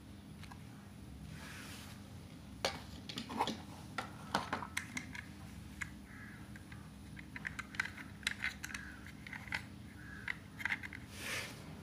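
Light plastic clicks and rattles from a toy train locomotive and passenger coach being handled, coming in quick irregular clusters from about two and a half seconds in, with a short rustle near the end.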